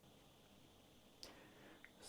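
Near silence: faint room tone, with one faint short click a little past a second in.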